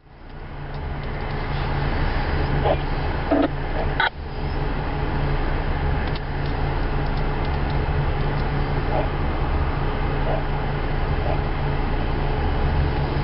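Diesel locomotive engines of two EMD SD70M units running with a steady low drone as the train approaches, with a short knock about four seconds in.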